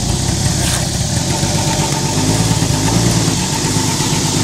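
A Ford 300 inline-six engine in a 1980 Ford van idling steadily: an even, pulsing low rumble with a faint steady whine over it.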